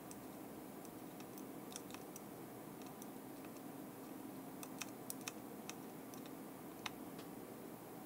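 Soldering iron reflowing the loose pins of a GPS unit's USB port through solder paste: faint, scattered little ticks and crackles, several close together around the middle, over a faint steady hum.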